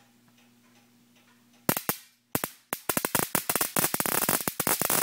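High-voltage sparks snapping at the top of an ignition coil as an MSD ignition box fires it, the pickup input being shorted by hand. The first snap comes about a second and a half in, then two more, then a rapid uneven string of about ten a second. The repaired box is firing the coil as it should.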